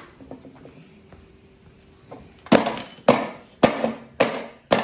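Hammer blows driving a seized crankshaft out of a Honda GCP160 lawnmower engine: about five sharp metal-on-metal strikes, each ringing briefly, starting a little over two seconds in at roughly one every half second or so.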